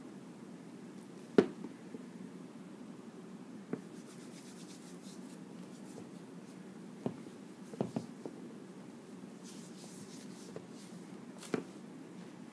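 Hands handling a bottle and a diaper: a few sharp knocks and taps, the loudest about a second and a half in, with soft rubbing and rustling, over a steady low hum.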